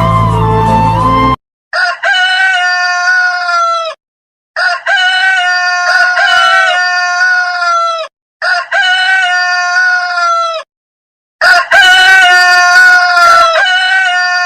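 Rooster crowing cock-a-doodle-doo four times, the same crow repeated as a looped ringtone with silent gaps between. Each crow lasts two to three seconds and ends on a long, slightly falling note. A different, fuller sound fills the first second or so before the first crow.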